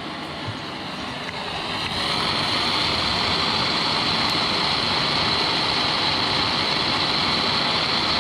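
Gas torch flame burning steadily with a rushing hiss as it heats and burns out rubber suspension bushes. It grows louder about two seconds in.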